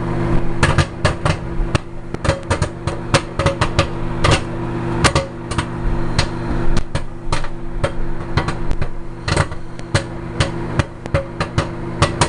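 Popcorn popping inside a paper lunch bag in a running microwave oven: rapid, irregular sharp pops, several a second, a few louder than the rest, over the oven's steady hum.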